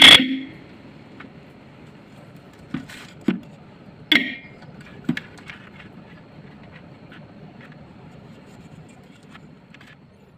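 Freshly cleaned and reassembled 12-volt electric vehicle horn giving a short, loud blast at full strength on battery power. It is followed by a few sharp clicks and knocks about three to five seconds in, one with a brief horn chirp, and faint ticks after that.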